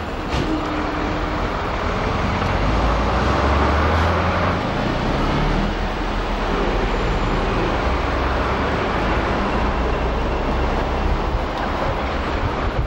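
A car driving slowly, heard from inside it: a steady mix of engine rumble and tyre noise on a paved street. The low rumble swells a little about three to five seconds in.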